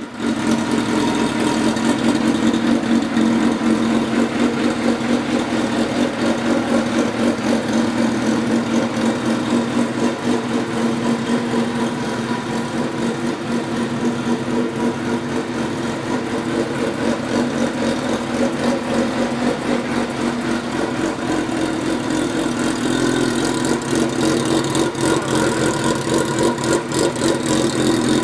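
Suzuki GSX-R 750's inline-four engine idling steadily through a custom aftermarket exhaust, a little louder over the last few seconds.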